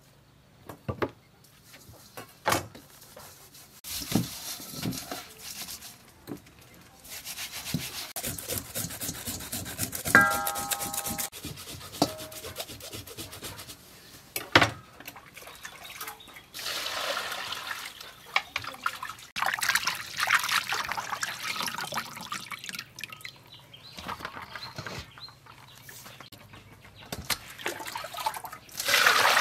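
Hands rubbing salt over a whole scaled fish in a stainless steel bowl to clean off its slime: intermittent wet rubbing and scraping with scattered clicks and knocks against the bowl. A brief ringing tone comes about ten seconds in. Near the end, water starts pouring into the bowl.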